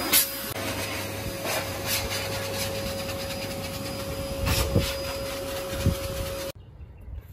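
High-velocity pet dryer blasting through a Samoyed's thick double coat to blow out the undercoat: a steady rushing hiss with a held whine, with a few low thumps, then cut off suddenly about six and a half seconds in.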